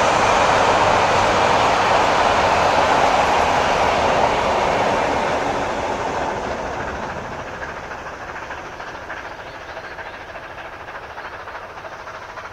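Passenger carriages of a steam-hauled train rolling past on the rails, a steady rumble of wheels on track that holds for about five seconds and then fades away as the train draws off.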